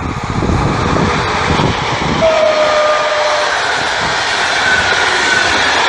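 PKP EP07 electric locomotive and its Intercity passenger coaches passing close at speed: a heavy rumble for about the first two seconds, then a steady rushing of the coaches rolling by with a faint high squeal. About two seconds in, a brief tone falling slightly in pitch sounds for just over a second.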